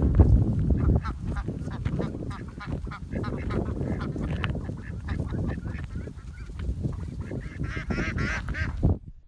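Domestic ducks calling over and over in flight, with a quick run of wavering, higher calls near the end, over a heavy low rumble. The sound cuts off suddenly just before the end.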